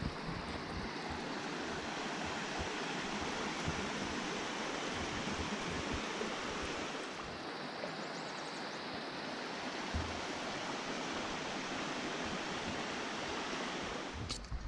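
Mountain brook rushing steadily, with one sharp click near the end.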